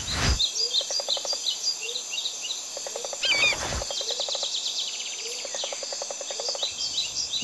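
Birds chirping, with repeated short falling chirps and rapid rattling trills. It opens with a brief whoosh, and a louder warbling call comes about three seconds in.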